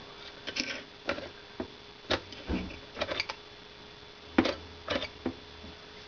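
Elevator car push buttons on a Brinkman panel clicking as they are pressed, about a dozen uneven clicks, over a faint steady hum.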